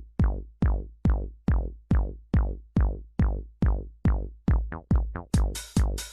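Electronic dance music: a deep kick drum pounds a little over twice a second, each hit with a quick downward sweep. About four and a half seconds in, the hits quicken briefly, then a bright hissing cymbal layer joins the beat.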